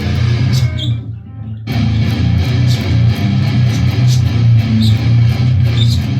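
Electric guitar tuned to drop A playing a low, palm-muted riff on the bottom string, chugging through the open and first few frets. It breaks off briefly about a second in, then resumes.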